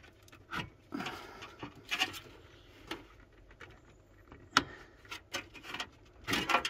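Scattered clicks, knocks and scraping as a graphics card is worked loose and pulled out of its motherboard slot in an open PC case. The loudest is one sharp click about four and a half seconds in.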